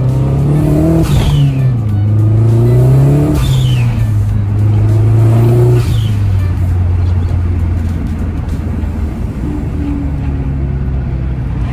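Mazdaspeed3's turbocharged 2.3-litre four-cylinder engine idling and blipped three times in the first six seconds, each rev dropping back with a short falling hiss, then settling to a steady idle.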